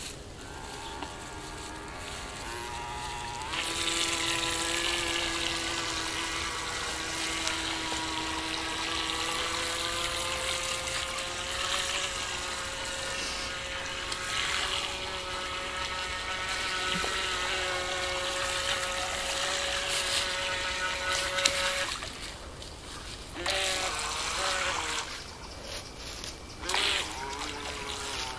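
Small electric motor of a ProBoat BlackJack 9-inch RC catamaran whining at high speed with the hiss of water off the hull, its pitch creeping up over about eighteen seconds. It then stops suddenly and comes back in a few short bursts, the throttle cut-outs the owner puts down to the low-voltage cutoff of a nearly flat 2S LiPo.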